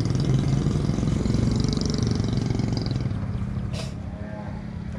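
A vehicle engine running with a steady low rumble that eases off about three seconds in to a quieter hum, with one sharp click near the end.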